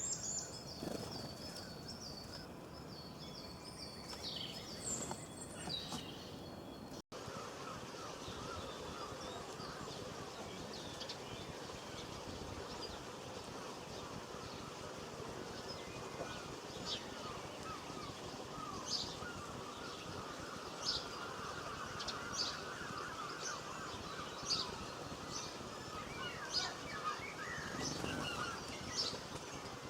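Small songbirds chirping and singing over a steady outdoor background hiss. There is a brief dropout about seven seconds in, after which short high chirps repeat every second or so over a busy, trilling chorus.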